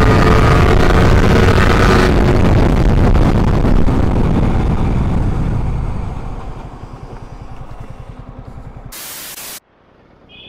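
Wind rushing over the microphone of a Yamaha R15 V3 motorcycle ridden at high speed, with the single-cylinder engine's note audible under it for the first two seconds. The rush fades from about six seconds in as the bike slows, and a short burst of hiss near the end cuts off suddenly.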